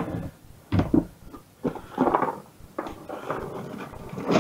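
A kitchen cupboard being opened and a plastic container handled and knocked against a bin as vegetable trimmings are tipped out: a series of separate knocks and short scrapes, the loudest near the end.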